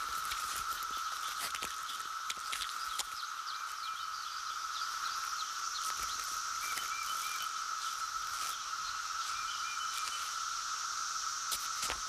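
Chorus of periodical cicadas, a steady buzzing drone holding one pitch, with scattered short clicks and a few faint chirps over it.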